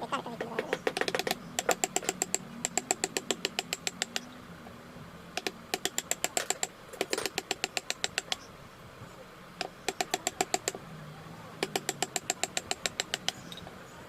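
Rapid trains of light, sharp taps, about ten a second, stopping and starting again every second or so: a hammer tapping a carving chisel into wood.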